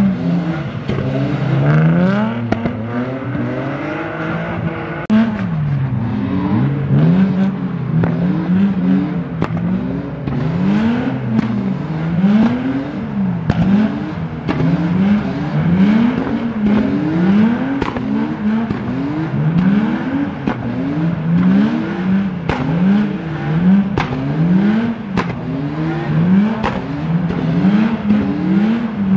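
Car engine revving hard and dropping back over and over, about once a second, as a car is driven in a drift. Short sharp cracks are scattered through it.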